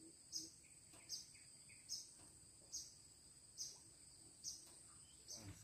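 Faint riverside insect drone, a steady high whine, with a short high chirp repeating about once a second.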